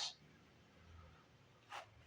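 Near silence: room tone, with one faint, short click or scrape about three-quarters of the way through.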